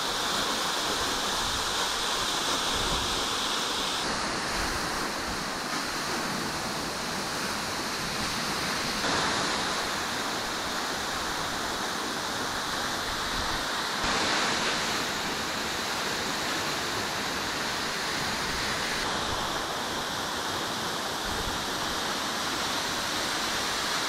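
A vertical plunge waterfall about 30 m high, its water falling down a near-vertical rock wall and breaking into spray: a steady rushing of water. The tone shifts slightly and suddenly about every five seconds.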